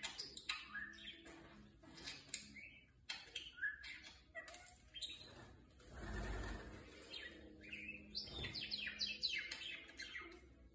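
Budgerigar chattering: a busy run of short chirps and warbles, with a brief rustle about six seconds in.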